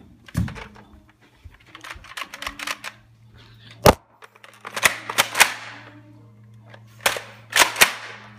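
Sharp plastic clicks and clacks of a single-shot Nerf blaster being worked by hand, in irregular groups, the loudest single snap about four seconds in. A faint steady low hum sits underneath from about three seconds in.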